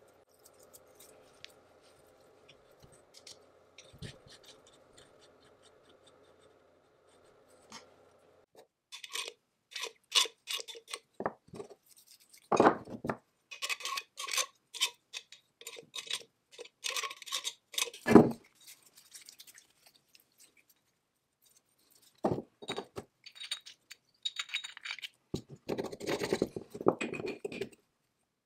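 Small cast-iron and steel slide-rest parts of a Barnes velocipede treadle lathe clinking, knocking and scraping as they are handled and fitted together by hand. A faint steady hum comes first; the clinks start about a third of the way in, with two louder knocks in the middle and rougher scraping near the end.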